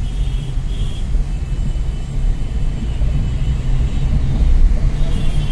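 Steady low rumble of a car driving in traffic, heard from inside the cabin: engine and tyre noise.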